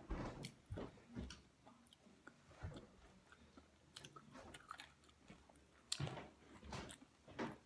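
Faint chewing and biting of Doritos Loaded, cheese snacks with a crispy Doritos-flavoured crust: irregular soft crunches and mouth sounds, a little louder about six seconds in and again near the end.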